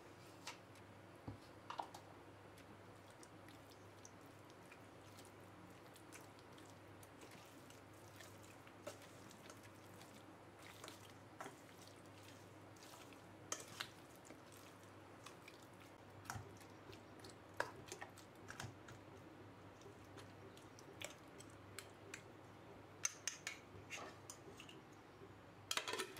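Faint spoon-mixing of yogurt into marinated chicken pieces in a stainless steel bowl: soft squelching with scattered light clicks and scrapes of the spoon on the steel. Near the end, a few sharper clicks as a ceramic plate is handled.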